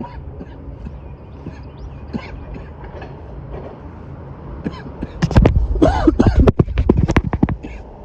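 A man coughing hard several times in a row, starting about five seconds in, after a long vape hit held until the device blinks. Before that there is only a low steady hum in the background.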